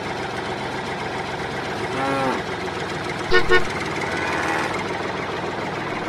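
A small engine running steadily, with two quick horn toots a little past halfway. A short rising-and-falling call sounds about two seconds in.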